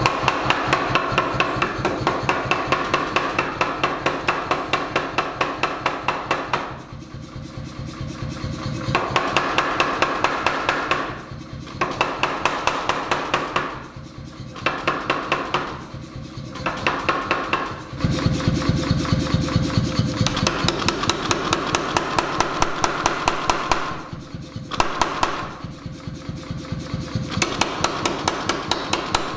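C41-16 pneumatic forging hammer (16 kg ram) striking hot steel in a fast, even run of blows, about four a second. Several times it eases to lighter, quieter strokes before returning to full blows.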